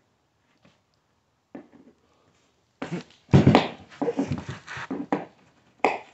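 Brad nails being worked out of plywood floor underlayment with a hand tool: scattered clicks and scrapes of metal on nail and wood. Between about three and five seconds in comes a loud cluster of knocks and scraping mixed with short strained grunts of effort, and a sharp click near the end. The long nails are stuck solid.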